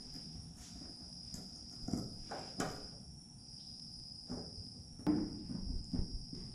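Hand screwdriver turning lubricated screws into a camera mount on an aircraft wing: scattered small clicks and scrapes of the tool and hardware, a few of them sharper. A steady high-pitched insect trill runs underneath.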